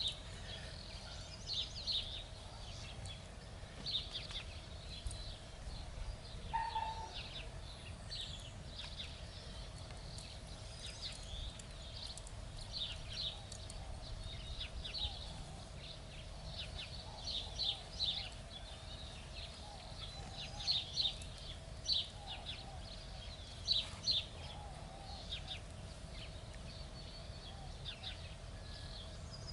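Small birds chirping in clusters of short, high notes every second or two, over a low steady rumble and a faint steady hum.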